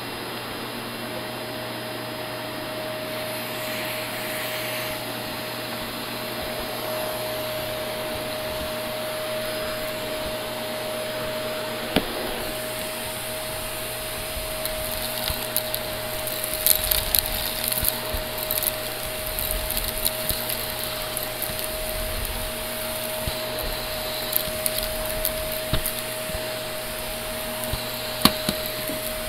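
Shark Navigator upright vacuum running on carpet, a steady whooshing hiss with a constant motor tone. From about halfway through it crackles and ticks as grit and debris rattle up into it.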